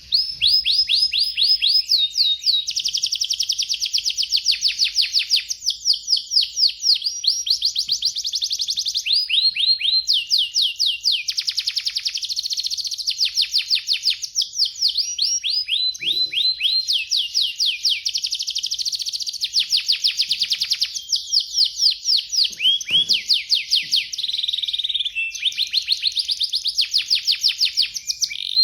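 An F1 canary singing a long, nearly unbroken song of rapid trills: runs of fast repeated down-slurred notes that switch to a new phrase every second or two.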